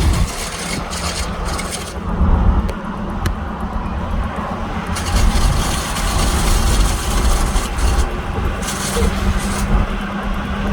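A 2008 Ford F-150 pickup with the 5.4 V8 and 4x4, driving: a steady low engine and road rumble with several stretches of hissing, scraping noise over it.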